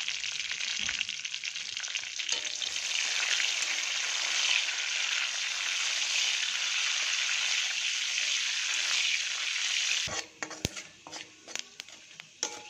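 Whole spices (dried red chillies, bay leaves, fennel and panch phoron) sizzling in hot oil in a kadai as a metal spatula stirs them: the tempering frying. The sizzle cuts off suddenly about ten seconds in, leaving a few sharp clicks and taps.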